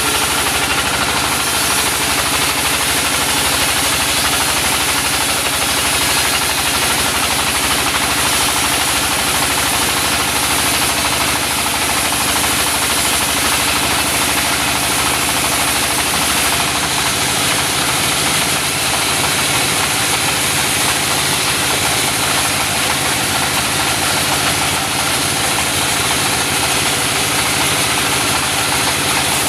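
Engine-driven mobile sawmill running steadily: a continuous engine drone with a hiss over it, unchanging in level.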